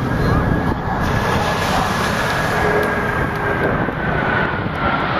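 Jet roar from a formation of four Blue Angels F/A-18 Hornets flying overhead: a steady, loud rumble with a faint whine that drops slightly in pitch near the end.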